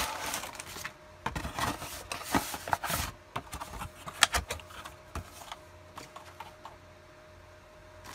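Hands opening a cardboard model-kit box and handling its paper instruction sheet: rustling, scraping and light knocks, with a sharper knock about four seconds in, fading to faint handling noise in the second half.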